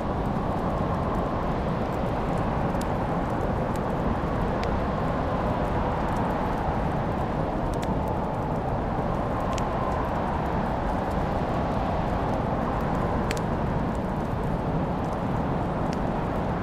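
Wood fire burning in a fireplace: a steady low rush with a few sharp, scattered crackles and pops.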